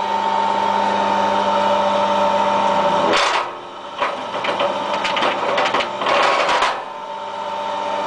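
Electric wire stripping machine running with a steady hum. About three seconds in, aluminium cable is drawn through the rollers and blades, and the hum gives way to a few seconds of crunching and clicking as the blades slit the insulation. The hum comes back near the end.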